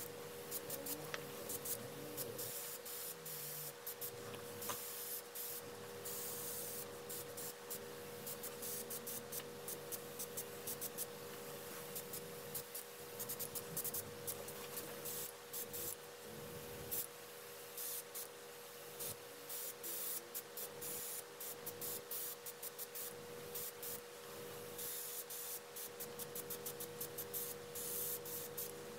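Gravity-feed airbrush hissing in many short bursts of air as the trigger is worked, spraying fine black lines, over the steady hum of the small airbrush compressor.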